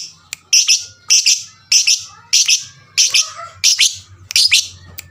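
Lovebird calling in a fast series of about eight loud, harsh, shrill chirps, one roughly every half second or so. This is the excited, persistent calling used as a lure sound to get other lovebirds to start calling.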